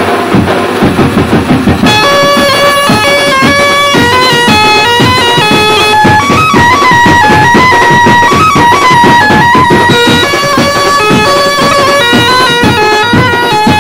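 Background music with a steady drum beat; a plucked-string melody of held, stepping notes comes in about two seconds in.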